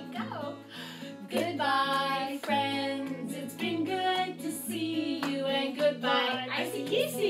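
Women singing a children's sing-along song to a strummed acoustic guitar.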